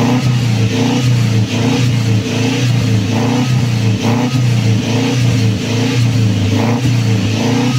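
Suzuki APV Arena's four-cylinder petrol engine running, heard at the exhaust tailpipe, freshly cleaned with an injection cleaner. The sound swells and eases about once a second, as with repeated throttle blips.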